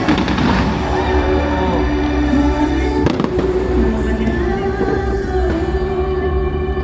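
Fireworks bursting during the display, with a sharp bang about three seconds in, over music with long held notes.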